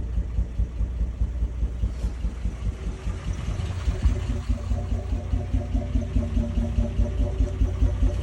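1994 Toyota 80 series Land Cruiser engine idling roughly, with an uneven, pulsing beat. A steady tone joins the engine sound about four seconds in.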